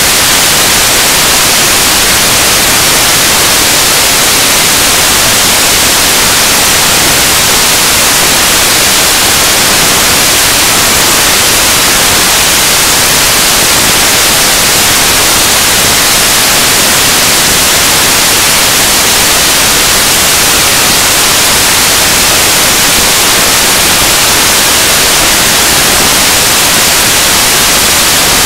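Loud, steady static hiss, even and unchanging, brightest in the treble, with no speech or other sound through it.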